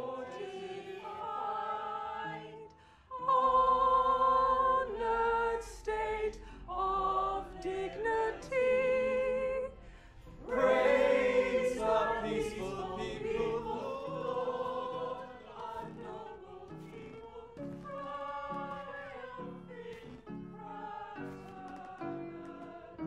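A group of voices singing a slow, solemn anthem in held notes with vibrato.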